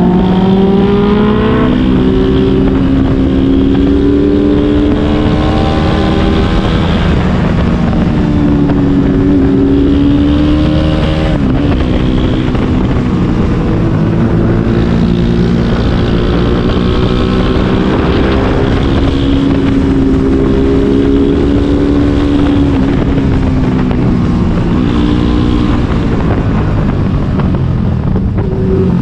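Sport motorcycle engine running under load while riding. Its pitch rises and falls with the throttle, with a quick drop and climb about eleven seconds in, like a gear change. Wind rushes steadily across the microphone.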